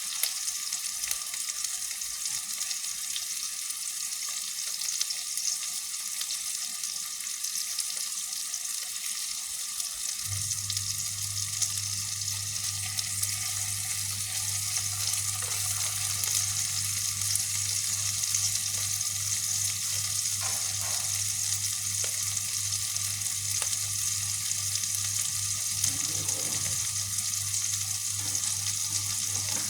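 Chicken meatballs frying in hot oil: a steady sizzle with scattered small crackles. A low steady hum joins about ten seconds in.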